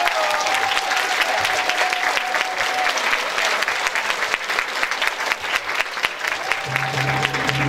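Audience clapping steadily, with music starting up near the end.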